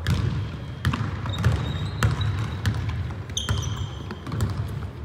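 Basketball dribbled on a hardwood gym floor: sharp bounces every half second to a second, ringing in the large hall over the players' footfalls. Basketball sneakers squeak on the floor, most sharply about three and a half seconds in.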